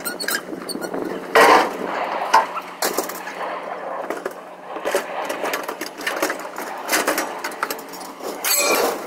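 Scrap metal being handled and pulled off a trailer: irregular metallic clanks, knocks and scrapes, a few seconds apart, with a louder clatter about a second and a half in and another near the end.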